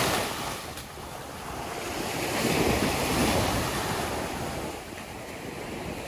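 Ocean surf breaking and washing up a sandy beach, with wind buffeting the microphone. The wash swells louder from about two to four seconds in as a wave runs up the sand.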